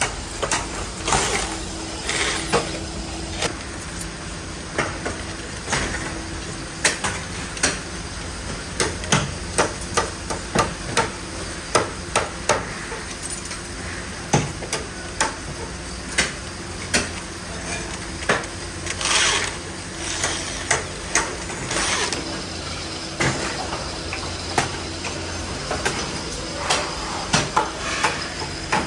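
Irregular metal knocks and clanks, some ringing briefly, from bicycle parts being struck and handled in factory work, over a steady machinery hum.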